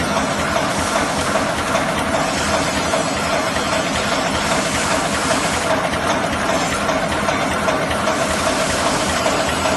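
Welded wire mesh roll machine running: a steady, dense mechanical clatter and hiss over a constant hum.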